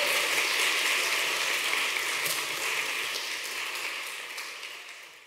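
Audience applauding: dense clapping that fades away over the last couple of seconds.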